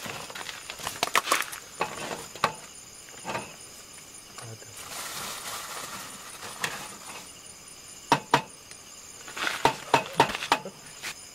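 Light clinks, taps and rustling as food packets and a plastic bag are handled on a metal camp table, in two clusters. A faint high chirp repeats evenly in the background.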